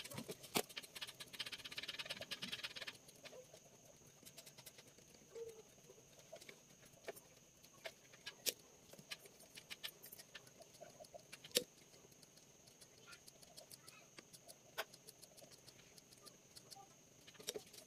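Faint handling noises of speaker wire and a woofer driver being worked by hand: a quick scratchy rasp for the first three seconds, then scattered light clicks and taps as the wires are pulled through the cabinet.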